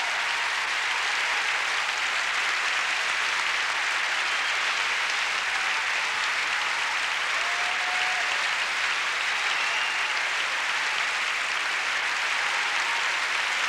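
Large concert-hall audience applauding, a steady dense clapping that holds at the same level throughout.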